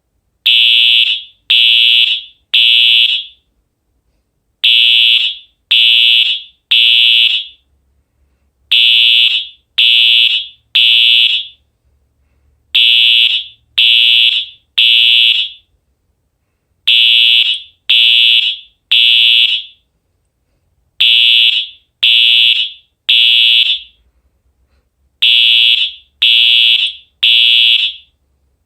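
Wheelock EL1 fire alarm horn sounding in code 3, the temporal-three evacuation pattern: three short high-pitched blasts about a second apart, then a pause, repeating about every four seconds.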